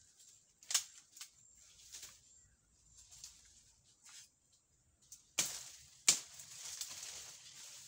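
Foliage and net being handled in a palm thicket: a few sharp crackles and clicks, then two louder crackling rustles of fronds and branches being pulled, about five and six seconds in, that trail off slowly.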